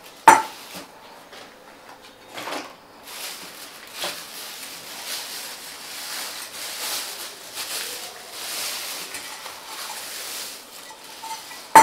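Crinkling and rustling of a clear plastic bag being pulled off a stainless steel brush-washer bowl. A sharp knock about a third of a second in is the loudest sound, and another comes right at the end.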